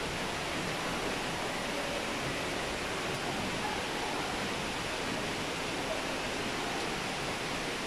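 Steady, unbroken rushing of falling water, even in level throughout.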